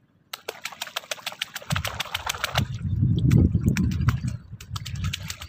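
Water splashing and sloshing around a person wading chest-deep in a reservoir. A quick run of crackling clicks starts it, then a loud, low churning of water swells and dies away.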